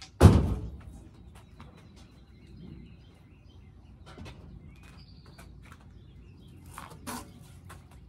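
A large mud-terrain truck tire is thrown and lands with one loud, deep thud just after the start. Faint bird chirps and light clicks follow, with a smaller knock near the end.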